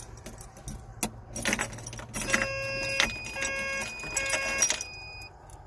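Keys jangling and clicking in the excavator's ignition, then the cab's electronic warning beeper sounding three times on key-on, with the engine not yet running.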